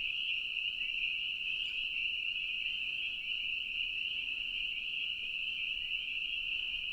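A dense chorus of spring peepers: many overlapping high-pitched peeps blending into a steady, unbroken ringing.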